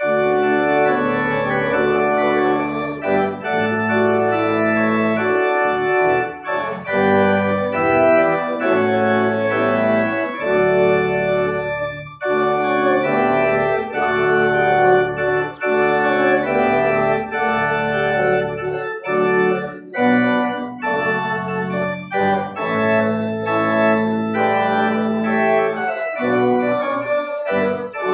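Church organ playing loud held chords over a sustained bass line, the chords changing every second or so.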